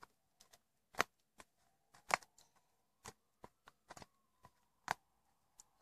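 Fluffy slime being squeezed and worked close to the microphone, giving faint, sharp pops and clicks at an irregular pace of about two a second as air pockets in it burst.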